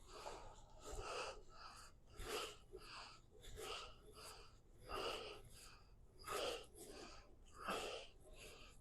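A person breathing hard and rhythmically through the mouth while exercising. A stronger exhale comes about every second and a half, with quieter inhales between.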